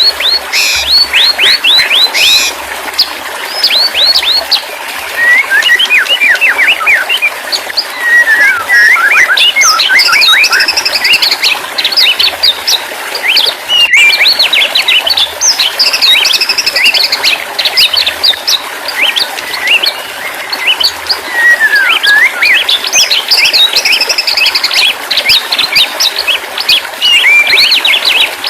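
White-rumped shama singing on and on: fast, varied runs of sweeping whistles and chirps, one phrase after another with only brief breaks.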